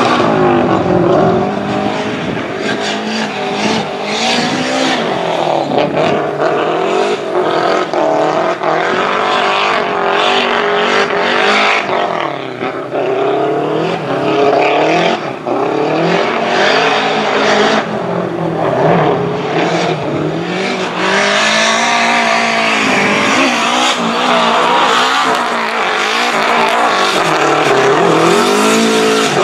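Nissan S13 drift car's turbocharged SR20DET four-cylinder engine revving hard through a drift run, the revs climbing and dropping again and again as the throttle is worked.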